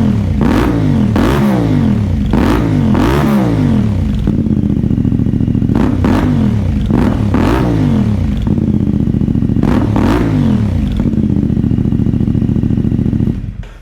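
CF Moto 450MT motorcycle's parallel-twin engine revved through a Fire Torch slip-on muffler with its baffle removed: about eight quick throttle blips that rise and fall back to idle. It idles for a few seconds after the blips, and the sound cuts off near the end. The baffle-less muffler gives a louder, rowdier note that the owner likes.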